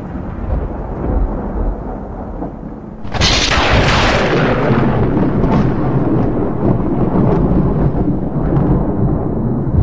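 Thunder-like rumbling sound effect under an animated intro: a low rumble, then a sudden loud rush about three seconds in that slowly dies away.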